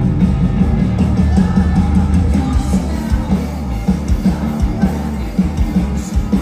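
Rock band playing live on amplified stage: two electric guitars, bass guitar and drums together, loud and dense, with a driving drum beat.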